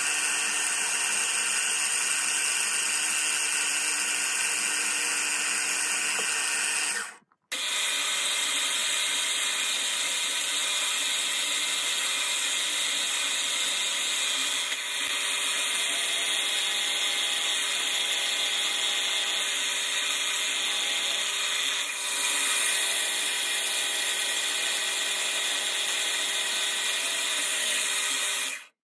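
Milling machine drilling through holes and counterbores into brass plates with a small end mill: steady spindle and cutting noise, broken by a sudden gap about seven seconds in.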